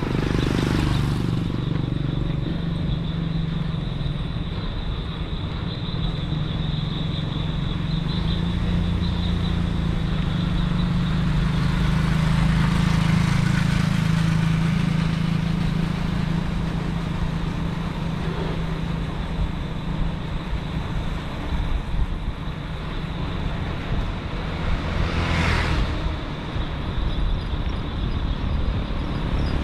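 Steady rumble of riding along a road: wind on the microphone and road noise, with a brief louder swell about 25 seconds in.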